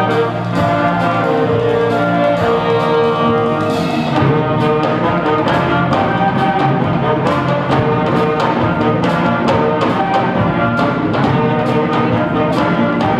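Wind ensemble of flutes, saxophones and a low brass horn playing a tune together, with drums keeping a steady beat.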